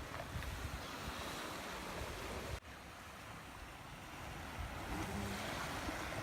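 Steady surf and wind noise from the shore. It breaks off abruptly about two and a half seconds in and comes back quieter, slowly building again.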